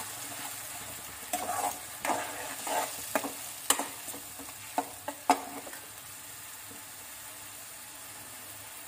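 Onion paste frying on medium heat in mustard oil in a kadai, sizzling steadily. For the first five or six seconds a steel spoon stirs it, scraping and clinking sharply against the pan a few times; after that only the sizzle remains.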